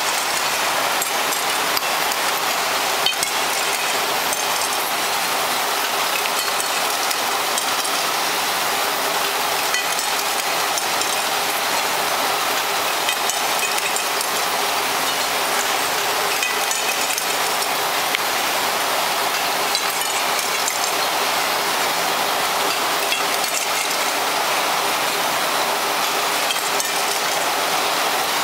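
Glass vial forming machine running: a steady hiss from its rows of gas burner flames heating the glass tubing, with light clicks and clinks from the machine's moving heads.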